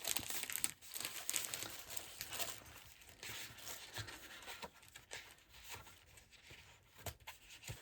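Irregular rustling and crinkling of paper and packaging being handled, with short crackles and light taps, as packs of patterned craft paper are sorted and unwrapped.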